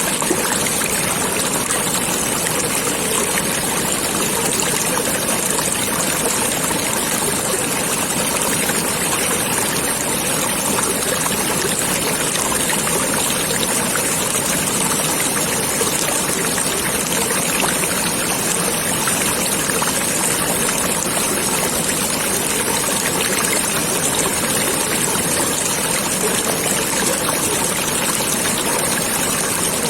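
Stream water flowing, a steady, even trickling and rushing with no breaks.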